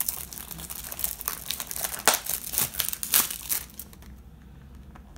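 Plastic cellophane wrap crinkling and tearing as it is pulled off a small cardboard box, with many sharp crackles. The crinkling dies down about four seconds in, leaving quieter handling of the box.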